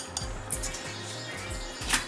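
Music playing in the background, with a few light clinks of a knife against a ceramic plate, the loudest near the end.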